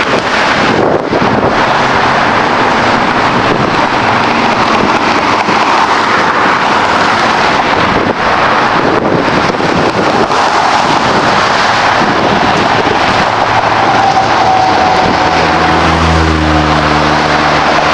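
Steady rush of interstate highway traffic with wind on the microphone. Near the end a heavier vehicle's low engine drone rises in over it.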